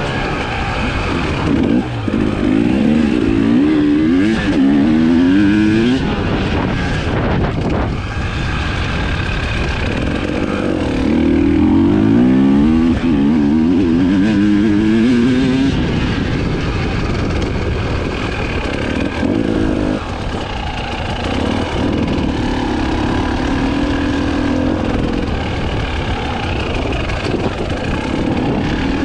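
Husqvarna TE 300i two-stroke enduro motorcycle engine being ridden, its revs rising and dropping with the throttle. Two long climbs in pitch stand out, a couple of seconds in and again around ten seconds in.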